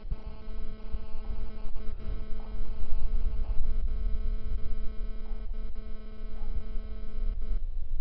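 Parrot quadcopter drone in flight, its propellers giving a steady, even hum over a low wind rumble; the hum cuts off suddenly near the end.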